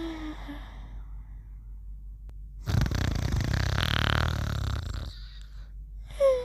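Cartoon snoring: a whistle falling in pitch trails off just after the start, then a loud rasping snore lasts about two and a half seconds, and the falling whistle begins again near the end.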